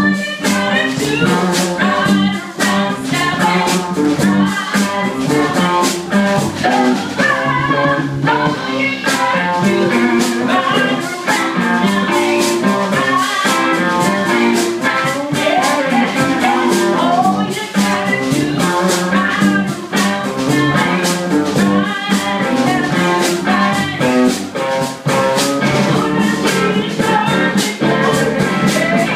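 Live blues band playing: a woman singing into a microphone over guitar and a drum kit, with a steady beat.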